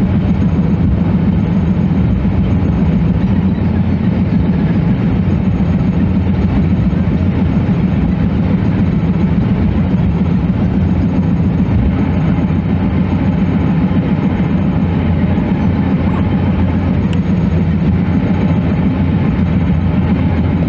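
Steady, unbroken drone of road and engine noise from a vehicle being driven along a highway.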